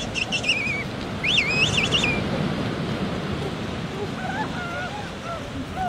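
King penguins calling over the steady wash of surf: two high warbling calls in the first two seconds, then shorter, lower calls near the end.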